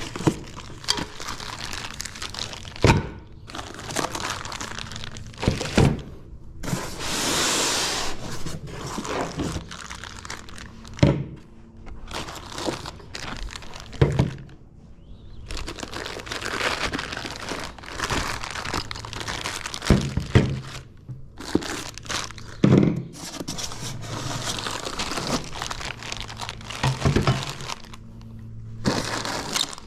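Unpacking a DEWALT DW7350 planer stand: packing material crinkling and tearing, with repeated thunks and knocks as the stand's parts are handled and set down.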